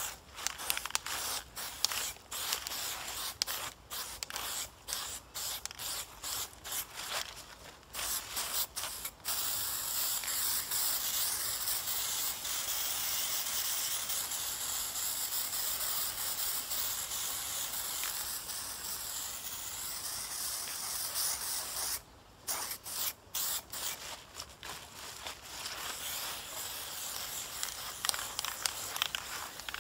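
Aerosol spray-paint can spraying: a run of short bursts, then one long unbroken spray of about twelve seconds, then short bursts again.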